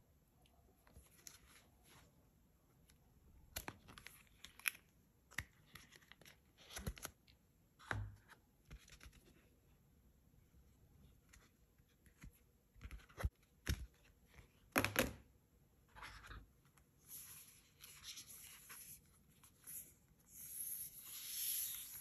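Hands handling a smartphone and its clear flexible plastic case as the case is pulled off. There are scattered sharp clicks and taps, then longer rustling scrapes near the end.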